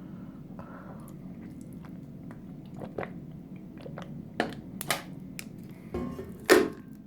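Wet mouth and throat sounds of a person gulping down water: a string of short clicks and gulps from about three seconds in, the loudest one near the end.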